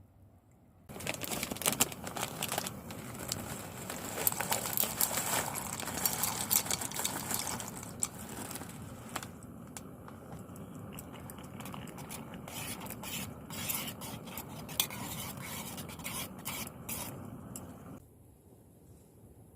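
Camp cookware being handled: utensils scraping and clinking against metal, with many sharp clicks over a steady rush of noise. It starts abruptly about a second in and stops abruptly near the end.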